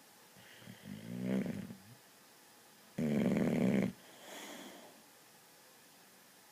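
Boxer dog snoring loudly. One snore builds and fades about a second in, then a louder snore of about a second starts and stops abruptly, followed by a softer breath.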